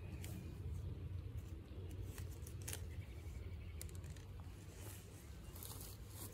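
Wooden dig stick working into forest soil and leaf litter around ramp bulbs: scattered crunches, scrapes and snaps of roots and dirt, over a low steady rumble.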